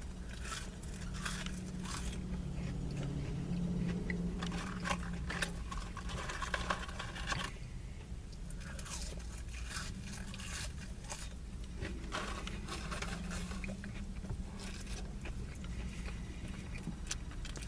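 Close-up chewing and biting of French fries, with scattered crunches and mouth clicks over a low, steady hum.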